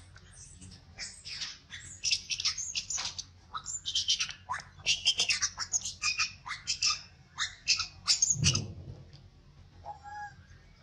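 Young long-tailed macaque screaming in distress, a rapid string of shrill squeals and screeches that stops about nine seconds in.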